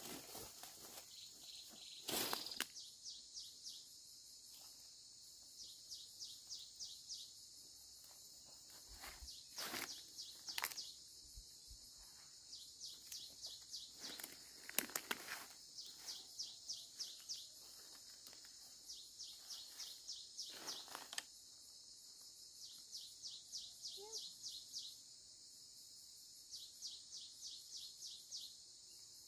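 Insects chirping in quick trains of high pulses, each train a second or two long, repeating throughout. A few short rustles and snaps of leafy stems being handled come through now and then.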